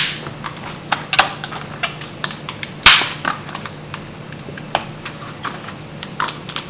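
Alienation TCS tubeless tire being muscled onto its BMX rim by hand: irregular clicks and snaps of the rubber bead against the rim, the loudest about three seconds in. The bead is made to fit the rim very tightly.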